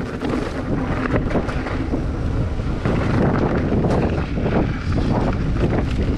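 Wind buffeting the microphone of a handlebar-mounted camera as a mountain bike rides fast down a dirt and gravel trail, with tyres crunching and the bike knocking and rattling over bumps.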